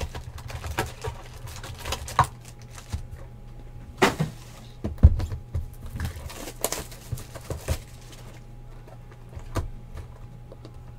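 Panini Spectra trading-card boxes being handled and unwrapped on a table: scattered taps, knocks and rustles, the loudest knock about five seconds in, over a low steady hum.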